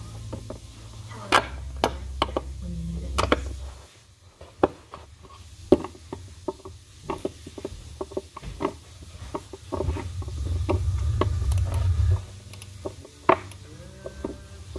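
Irregular clicks and knocks of a socket-style skate tool and metal hardware against a skateboard's metal truck and wooden deck while the truck's bolts are being loosened, over a low rumble of the board being handled.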